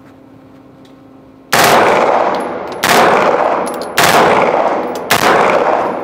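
Caracal CMP9 9mm submachine gun firing four short bursts on full auto, a little over a second apart, each burst ringing on in an indoor range.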